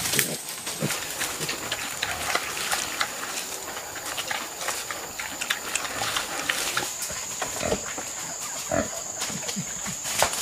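Pig grunting a few short times among crackling and rustling in the undergrowth.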